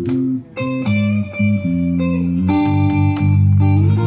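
Instrumental background music led by guitar, with held notes over a steady beat and a brief dip about half a second in.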